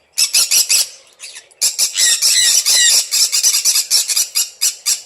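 Pet green-cheeked conures (pineapple and other colour mutations) squawking: a rapid string of harsh, high-pitched calls, several a second, with a short pause about a second in.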